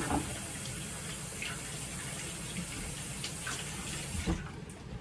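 Kitchen faucet running into the sink as hands are washed under it, an even hiss of water with a few small clicks. It is turned off with a knock a little over four seconds in.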